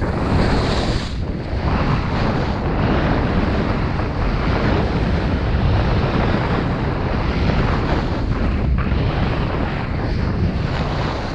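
Wind rushing and buffeting the microphone of a skier moving fast downhill, with the hiss of skis sliding over hard-packed snow.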